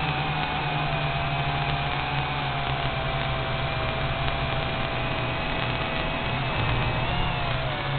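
Small FPV quadcopter's motors and propellers whining, heard from the craft's onboard camera over a steady hiss and hum. The pitch wavers up and down with throttle, most of all near the end.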